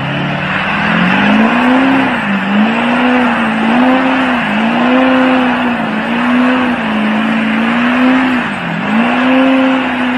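Lifted diesel pickup doing donuts in mud, its engine held at high revs with the pitch dipping and recovering every second or two as the spinning wheels bite and slip. A loud rushing noise of exhaust and spinning tyres runs under the engine note.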